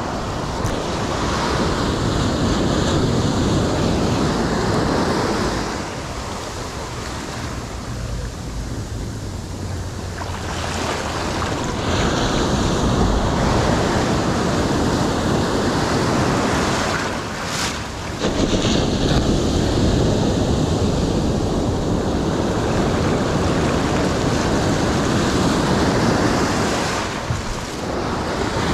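Ocean surf breaking close by and washing up the sand, swelling and easing as the waves come in, with wind rumbling on the microphone.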